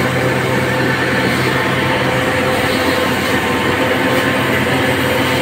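Steady engine drone, such as that of the pump feeding the hose, under the hiss of a pressure hose jetting water onto the pavement.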